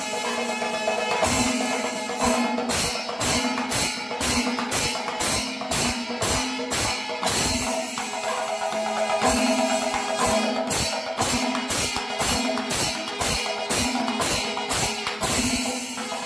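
Kerala temple percussion ensemble playing: drums beaten with ilathalam hand cymbals clashing in a fast, steady beat, with a short held tone recurring over it.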